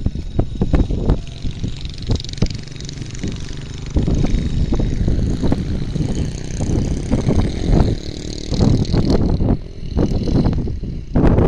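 Wind buffeting the microphone in uneven low gusts, with a fainter high hiss in the middle stretch.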